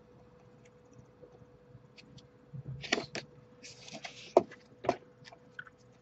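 Books and comic albums being handled in a cardboard box: a few sharp taps and knocks, with a short rustle of paper and cardboard about four seconds in.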